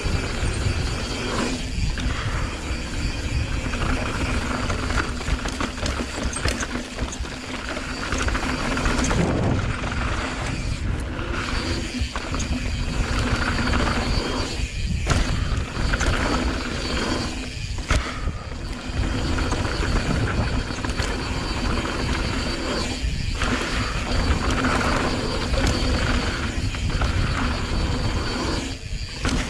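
Mountain bike riding fast down a hard-packed dirt trail: wind rushing over the camera microphone and tyres rumbling on the dirt, with the rear hub's freewheel ratcheting while coasting. The steady noise briefly dips several times.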